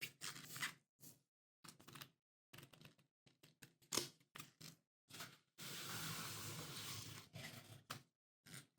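Smartphone packaging being handled: a run of short rustles, taps and clicks from the cardboard box and its contents, with one steady rustle lasting about a second and a half around the middle.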